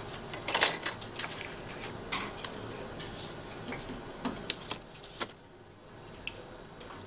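Sheet of drawing paper sliding and rustling on a desk as it is turned. Then a plastic ellipse template is set down on it with a few light clacks, about four to five seconds in.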